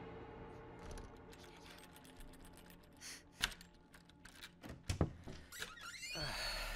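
Keys rattling and a key working in a door lock: a run of small metallic clicks with two sharp louder clacks, then a scraping creak near the end as the wooden door begins to open.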